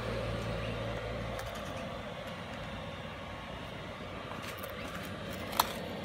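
12 V 5 kW diesel air heater running steadily through its shutdown cool-down cycle, its fan still blowing after the heater has been switched off. A low hum drops out about a second and a half in, and a single sharp click comes near the end.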